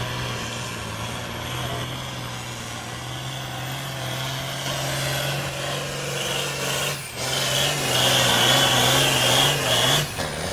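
A John Deere pulling tractor's diesel engine running hard at full throttle while it drags a weight-transfer sled. The engine note is steady, with a high whine over it. It gets louder from about eight seconds in, with brief dips around seven and ten seconds.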